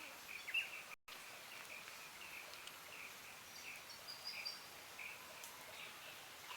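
Quiet outdoor ambience: a steady hiss with a short high chirp repeated about twice a second, from a bird or insect. The sound cuts out completely for a moment about a second in.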